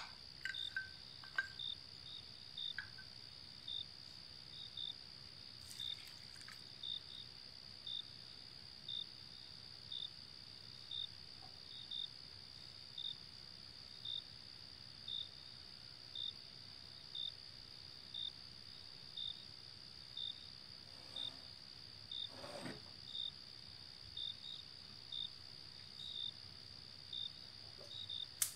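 Crickets: a steady high-pitched trill with a short, slightly lower chirp repeating about once a second.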